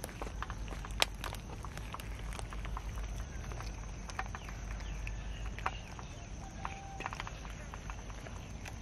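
A crowd of cats eating rice together: many small, irregular clicks and smacks of chewing and lapping, with one sharper click about a second in.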